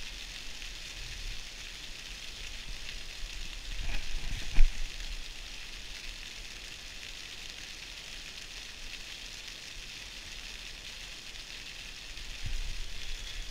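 Rain pattering steadily on the fabric roof of an ice-fishing hut, heard from inside. A sharp thump about four and a half seconds in is the loudest sound, with a softer knock near the end.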